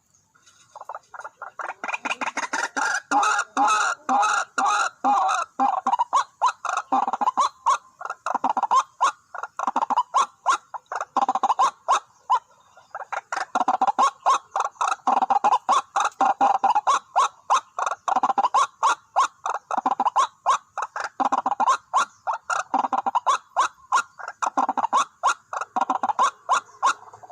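White-breasted waterhen calling: a long series of loud, harsh, rapidly repeated notes, about two or three a second. The series breaks off briefly around the middle, then starts again.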